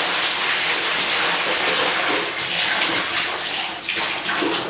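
Water spilling over the rim of a brim-full bucket and running into a bathtub as a balloon is pushed under, with some sloshing. The rush thins out about four seconds in.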